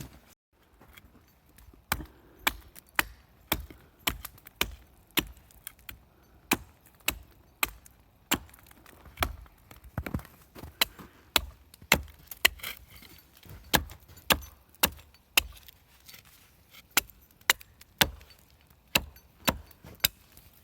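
Hatchet striking wood over and over in sharp single blows, about two a second, some harder than others.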